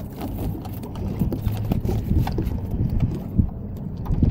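Boat engine running steadily as a low hum, with irregular knocks and clatters of handling on board.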